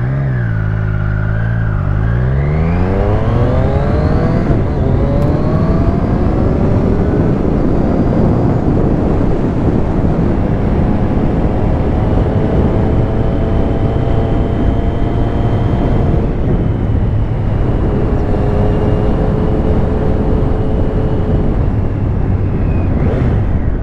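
Triumph Street Triple S 660 cc inline three-cylinder engine under hard acceleration, its revs climbing steeply over the first several seconds, then running at a fairly steady pitch at speed with a brief dip past the middle. Wind rushes over the bike-mounted microphone throughout.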